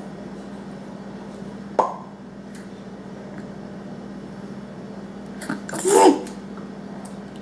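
A small child making a funny vocal noise: one short, loud pitched burst with a breathy, sneeze-like edge about six seconds in, after a brief sharp sound near two seconds. A steady low hum runs underneath.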